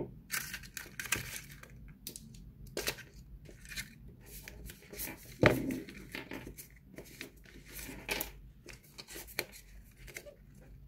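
Phone packaging being handled: paper and plastic rustling and crinkling, with scattered light knocks and clicks of small parts being set down.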